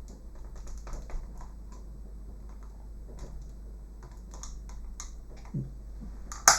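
Pry tool clicking and scraping against the plastic shell of an Xbox One controller as it is worked along the seam to release the stubborn clips, with one sharp, louder click near the end as a clip lets go.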